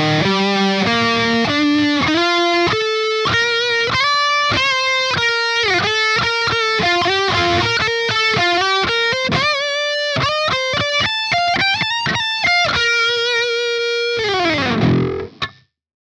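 Eight-string electric guitar played through a Line 6 POD HD500 modeller with a metal lead tone, running a fast single-note solo line. Near the end a long held note glides down in pitch and the sound cuts off suddenly.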